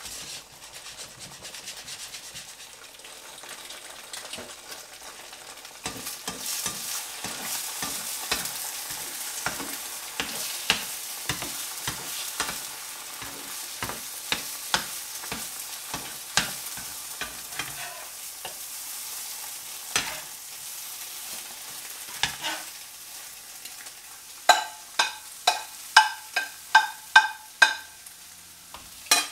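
Egg whites sizzling in a frying pan while being scrambled with a metal fork, the fork clicking and scraping against the pan about once or twice a second. Near the end comes a run of about nine sharp ringing taps, about two a second.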